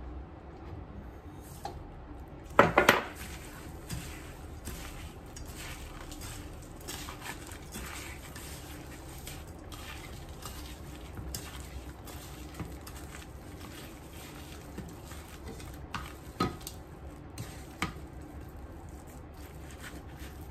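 Hands tossing egg-dipped chicken pieces in flour in a stainless steel bowl: soft handling noise with small clicks and knocks against the metal. There is a brief loud clatter of dishes about three seconds in, and two sharper knocks near the end.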